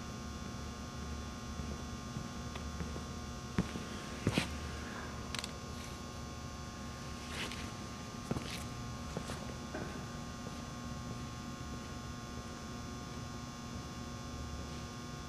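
Steady electrical hum of a shop's room tone, with a few scattered light knocks and footsteps on a concrete floor, mostly between about 3 and 10 seconds in.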